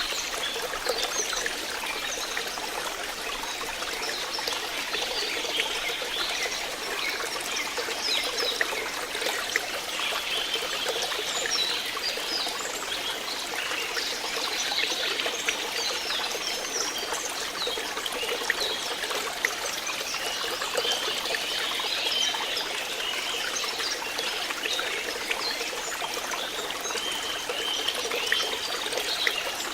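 Flowing water trickling and bubbling steadily, like a small stream.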